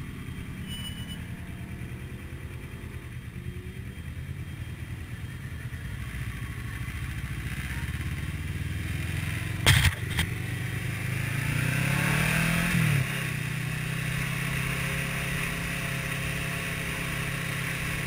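Motorcycle engine running under the rider, with wind rushing over the microphone. About ten seconds in there are two sharp knocks. The engine note then climbs as the bike accelerates and drops suddenly at a gear change.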